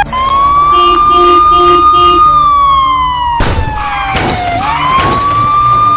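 Police car siren wailing, its pitch sweeping slowly down and back up, with a few short repeated beeps in the first two seconds and a loud burst of noise about three and a half seconds in.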